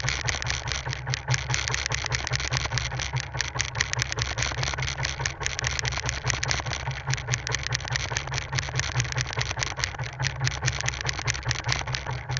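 Small fishing boat's engine running steadily at low speed, with a rapid even pulse.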